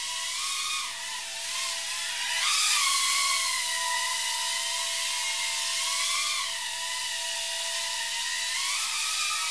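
Tiny whoop quadcopter's small motors and propellers whining in flight, the pitch rising and falling with throttle. It climbs and gets loudest about two and a half seconds in and rises again near the end.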